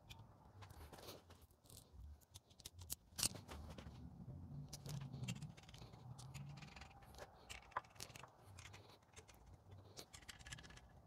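Faint, scattered metallic clicks and clinks as steel washers and nuts are set onto the case studs of a 40 HP Volkswagen air-cooled engine case, with one sharper click about three seconds in.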